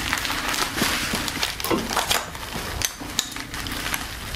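Bubble wrap and plastic packaging around a glass being handled and pulled at, crinkling and rustling, with a few sharp clicks and knocks.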